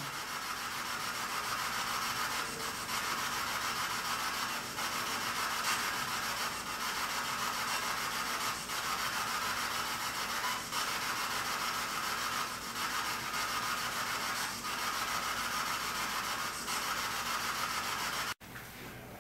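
Steady static-like hiss with a faint low hum and a faint pulse about every two seconds, cutting off abruptly near the end.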